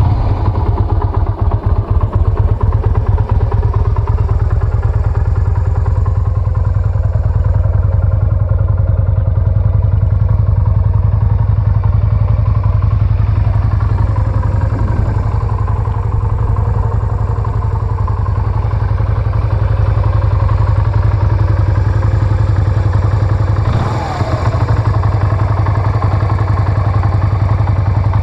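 Yamaha Virago 125's small air-cooled V-twin idling steadily through its stock, undrilled exhaust, with a deep even hum. The level dips briefly about 24 seconds in.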